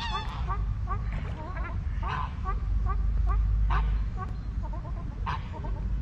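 A flock of geese calling on the water: a steady chatter of many short calls, with louder honks standing out about every second and a half. A low rumble runs underneath.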